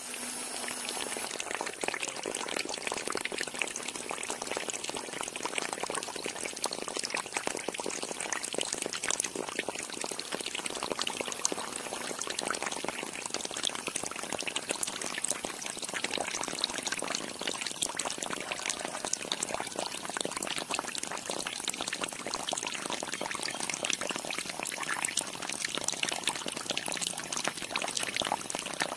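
A thin stream of water from a small DC-motor pump's clear plastic outlet hose pours and splashes into a shallow pool of water, a steady fine crackling splash.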